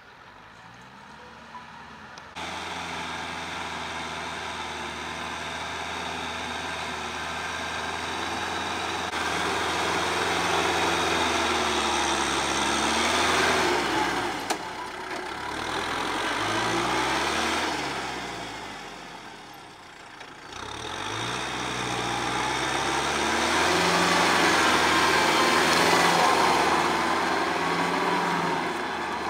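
Kubota M6040 tractor's four-cylinder diesel engine running under load as it drives a rear rotary tiller through the soil. The engine note swells as the tractor comes close, sinks and shifts in pitch for a few seconds past the middle, then swells again near the end.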